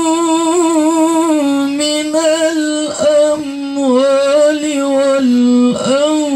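A male qari's melodic Quran recitation (tilawah) sung into a microphone: one voice holding long, ornamented notes that waver and step slowly down in pitch, with short breaks about three seconds and near six seconds in.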